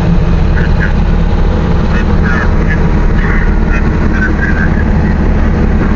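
Big Bud 450 tractor's diesel engine running with a steady, loud low drone.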